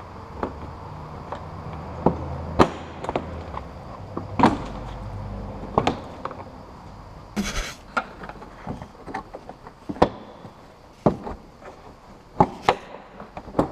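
Plastic retaining clips of a Nissan Qashqai's rear bumper cover clicking and knocking as the cover is pried loose with a screwdriver and pulled free by hand: a string of sharp clicks and snaps, with a brief scraping rasp about seven and a half seconds in.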